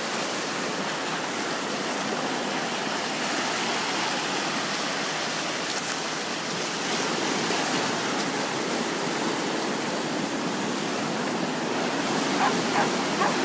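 Steady rush of ocean water washing over and around shoreline rocks at the tide pools.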